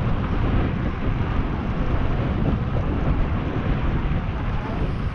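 Wind buffeting the microphone of a camera on a moving e-bike: a steady low rumbling rush.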